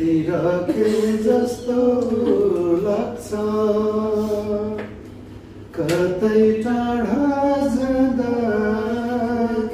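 A man singing a Nepali song without accompaniment, drawing out long notes that slide between pitches, with a short pause for breath about five seconds in.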